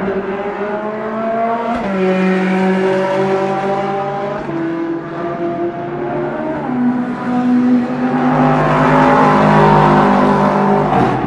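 Racing car engines at speed on the circuit. Their notes glide and step in pitch through gear changes, and a louder, closer pass-by from about eight seconds in cuts off abruptly near the end.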